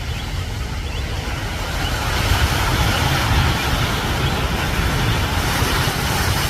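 Ocean surf washing against rocks, with wind buffeting the microphone as a steady low rumble. The surf hiss swells about two seconds in.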